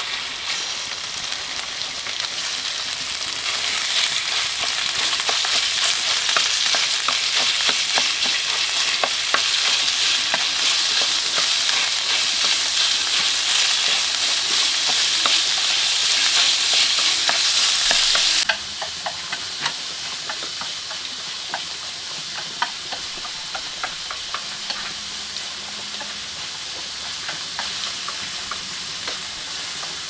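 Sizzling and crackling of food frying, a dense hiss full of pops that grows louder over the first few seconds. About 18 seconds in it drops suddenly to a quieter sizzle with scattered pops.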